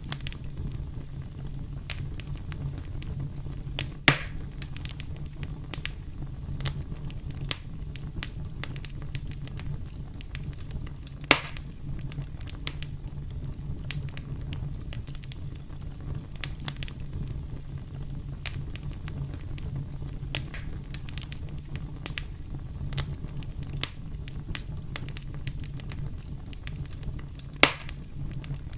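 Wood campfire crackling: a steady low rumble of the flames under a scatter of sharp snaps, with three louder pops about four, eleven and twenty-seven seconds in.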